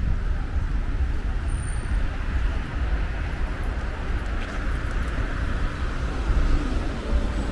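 Steady city street traffic noise with a deep rumble underneath, and no single vehicle standing out.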